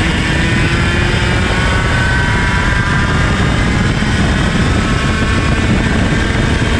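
IAME KA100 100cc two-stroke kart engine running hard, its pitch climbing slowly as the kart accelerates down a straight.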